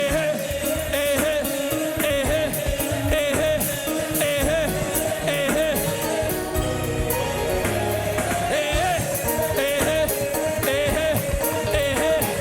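Live gospel worship band music, with bass, drums and a held wavering keyboard note, and voices singing over it.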